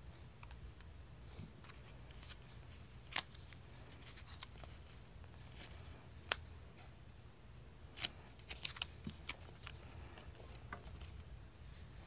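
Stiff card price tag on a rubbery squishy toy being handled and flipped over: scattered sharp clicks and taps, the two loudest about three and six seconds in, and a quick run of small clicks around eight to nine seconds.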